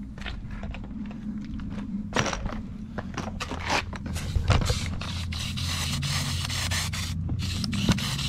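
Hand pump garden sprayer being pumped and sprayed: a run of short scraping strokes, then a denser hissing stretch as the degreaser mists out.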